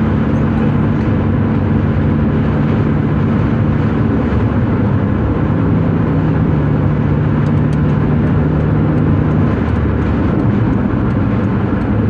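Steady road and engine noise of a car driving on a highway, heard from inside the car: tyre rumble with a low engine hum whose pitch drops slightly about five seconds in.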